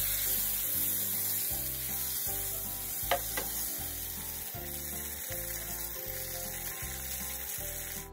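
Steak sizzling as it fries in butter with garlic and rosemary in a nonstick pan, with two sharp clicks of a metal utensil against the pan about three seconds in.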